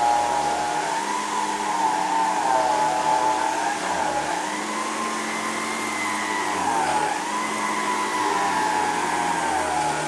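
Electrolux Super J canister vacuum with its power nozzle running on carpet, its motor whine dipping and rising every second or two as the nozzle is pushed back and forth.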